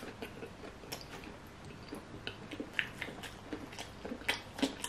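A person chewing a mouthful of steamed bun stuffed with crayfish meat: soft, irregular wet mouth clicks and smacks.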